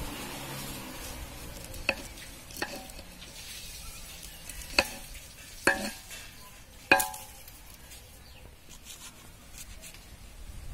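Kitchen knife slicing green chillies by hand over an aluminium pot, giving five sharp clicks of the blade, the last two loudest and ringing on briefly.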